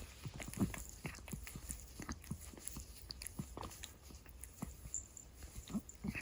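A large domestic cat close to the microphone making irregular small clicks and smacks with its mouth, several a second, over a faint low steady rumble.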